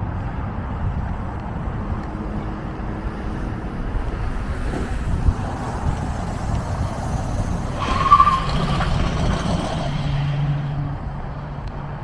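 Truck towing a fifth-wheel trailer rolls along, then stops hard about eight seconds in with a short tyre screech as the trailer's hydraulic disc brakes lock the wheels. The engine then idles steadily.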